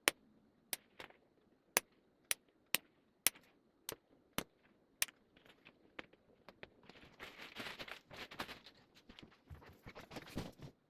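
A nail clipper snipping through fiber-optic star-light strands: nine sharp clicks about half a second apart. A few seconds of rustling handling follow.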